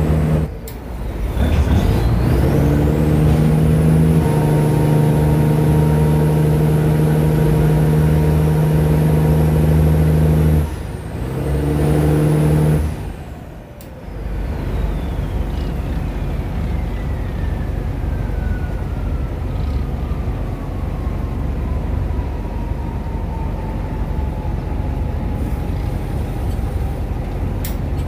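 Boat engine running with a steady drone and a high whine, breaking off abruptly about half a second in, again around eleven seconds and again past thirteen seconds. After that a rougher, steadier engine noise carries on, with a thin whine that slowly falls in pitch.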